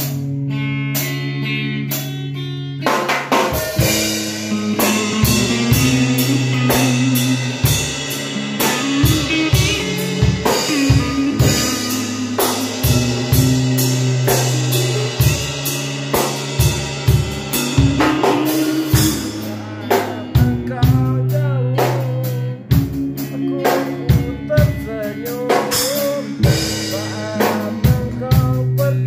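Band music: electric guitar and a drum kit over a steady low bass note, with the drums coming in about three seconds in and a lead line of bending notes above.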